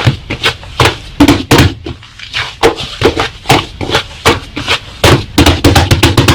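Slime being pressed and squished by hand, making sharp, irregular popping clicks, several a second.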